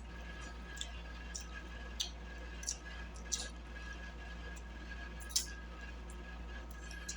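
Close-miked chewing of fried catfish: scattered wet mouth smacks and crispy crackles, about a dozen short sounds, the loudest about five and a half seconds in. A steady low hum and a faint high tone run underneath.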